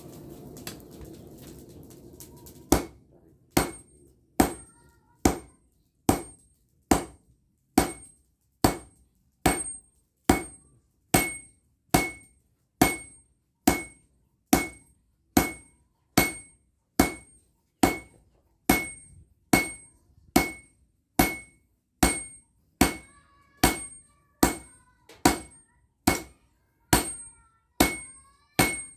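Sledgehammer blows on a red-hot blade of bearing steel laid on a steel anvil, struck at a steady pace of a little more than one blow a second, each blow ringing briefly. The blows begin after a short rushing noise about three seconds in.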